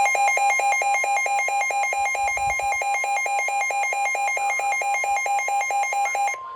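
Midland WR120 weather radio sounding its loud, rapidly pulsing alert alarm, about five beeps a second, over the steady 1050 Hz NOAA Weather Radio warning tone. The radio has been triggered by a warning broadcast. The beeping stops near the end while the steady tone carries on.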